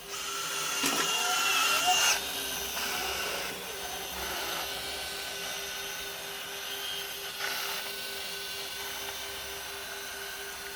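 Lejoy LD20 robot vacuum cleaner running: a steady motor and suction-fan whine with a pulsing hum, louder and harsher for about the first two seconds, then settling to an even level.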